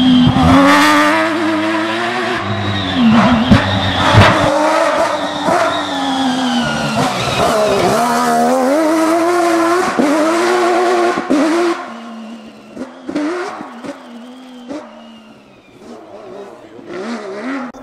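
Peugeot 205 rally prototype racing past close by, its engine revving hard with the pitch climbing and dropping again and again. About twelve seconds in it fades as the car moves away, with a few louder bursts of revving.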